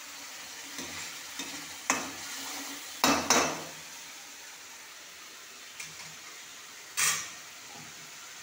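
Tomato masala frying with a light sizzle in a metal kadhai while it is stirred with a metal spoon. The spoon clanks against the pan about two seconds in, twice in quick succession around three seconds in (the loudest moment), and once more near the end.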